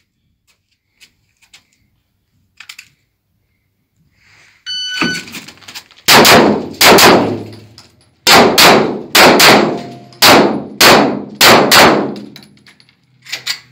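A short beep, then a Fort 21.03 pistol fired about twelve times, in quick pairs with short pauses between them. Each shot rings on in the room.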